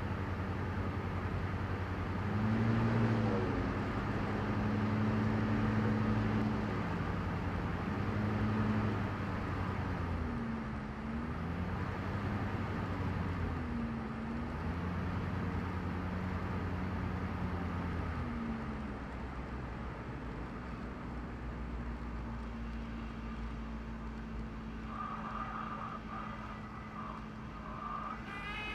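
Diesel engine of a Cessna 172 running, heard from inside the cockpit: a steady low drone whose pitch dips and rises several times over the first eighteen seconds, then holds steadier.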